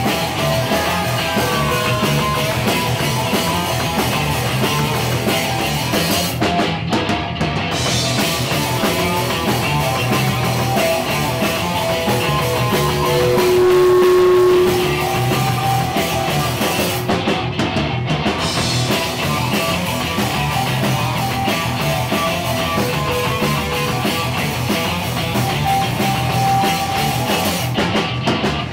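Live rock band playing loudly: electric guitar, bass guitar and drum kit, with a loud held note about halfway through.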